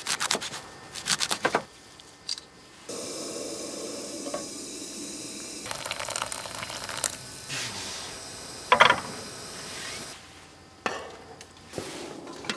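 Food sizzling in a hot pan, with clicks and clatter from cooking utensils and cookware. The sizzle starts suddenly about three seconds in and cuts off about ten seconds in, after a sharp clatter near the nine-second mark.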